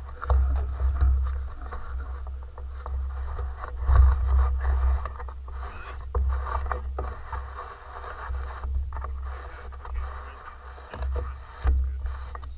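Wind buffeting an action camera's microphone inside its housing: an uneven, muffled low rumble with scattered scraping and knocking sounds.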